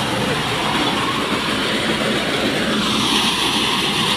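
Small maize thresher (corn sheller) running steadily with a continuous mechanical rattle and rumble. About three seconds in it turns harsher and hissier as a sack of maize is fed into the hopper.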